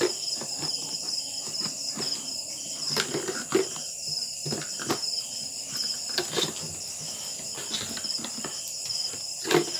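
Crickets chirping steadily, a pulsing high trill throughout. Over it come scattered clicks and knocks of hard plastic spray-gun parts and a cardboard box being handled, the sharpest about three and a half seconds in and again near the end.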